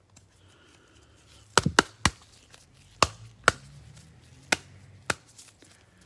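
A series of sharp knocks and taps, about eight in all: a quick cluster of three about a second and a half in, then single ones spaced roughly half a second to a second apart.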